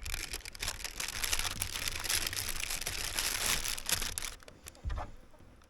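Baking paper crinkling and rustling in a baking dish as whole fish are laid on it, a dense crackle that fades out after about four seconds.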